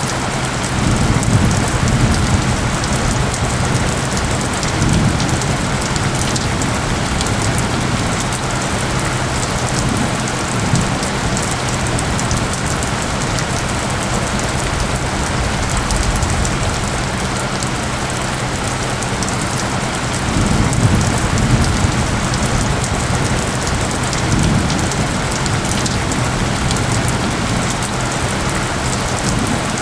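Steady, dense rainfall with low rumbles of distant thunder a second or two in and again about twenty seconds in. Beneath the rain runs a steady low tone bed of isochronic tones.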